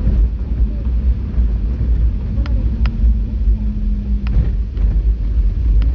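A car driving slowly on a narrow paved road: a steady low rumble of engine and tyres, with a few sharp clicks and knocks along the way and a brief steady hum in the middle.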